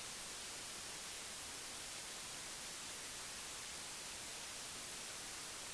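Steady, faint electronic hiss with nothing else in it: a bare recording noise floor, like static.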